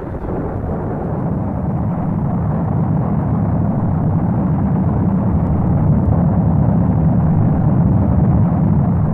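Football stadium crowd noise, a steady mass of voices and cheering that slowly swells as a goal is scored and celebrated.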